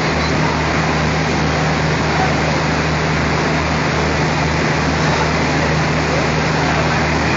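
Diesel locomotive engine running with a steady low hum as the locomotive moves slowly along the track.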